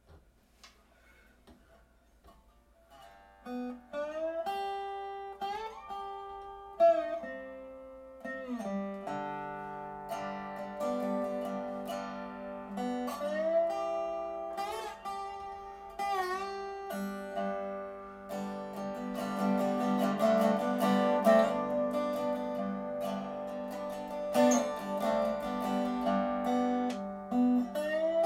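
Guitar played solo: plucked notes with pitch bends and slides, starting about three seconds in and growing fuller and louder toward the end.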